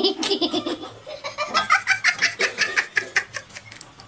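A person laughing hard, in a quick run of short bursts.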